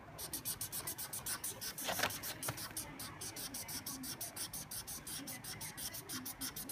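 Felt-tip marker scribbling back and forth on paper as a shape is coloured in: a rapid, even scratching of several strokes a second.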